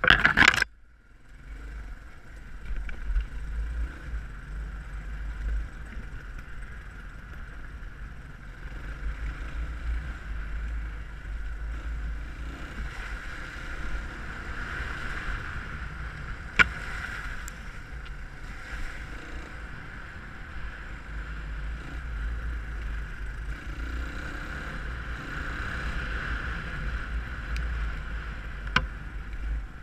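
Dirt bike engine running steadily on a rough trail, mixed with low wind rumble on the microphone. A loud brushing scrape comes in the first half-second as a branch sweeps past, and there are two sharp ticks later on.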